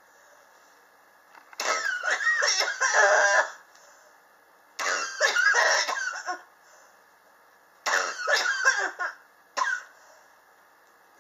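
A person's chronic cough: three long coughing fits and a short cough near the end, with high, strained wheezy tones in the fits. The cougher blames the cough on sharp temperature changes in the apartment.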